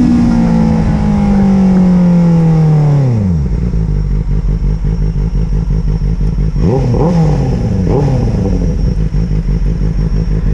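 Benelli 600 GT's inline-four engine through a Yoshimura Alpha replica exhaust: revs held high and slowly sinking, then dropping sharply to a pulsing idle about three seconds in. Two quick throttle blips come a little past the middle, then it settles back to idle.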